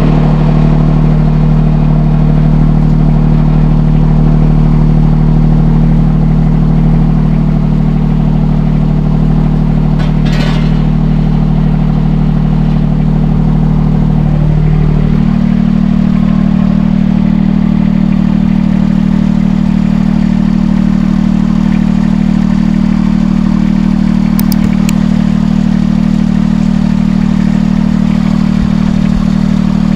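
Mini excavator engine running steadily; about halfway through, its speed steps up and holds at a higher pitch.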